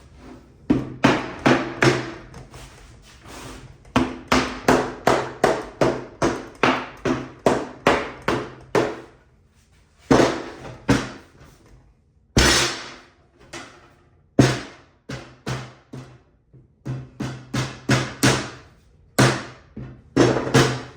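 Hammer tapping on a wooden drawer box, with runs of sharp knocks about two to three a second, each ringing briefly. The runs are broken by short pauses and a few single harder blows.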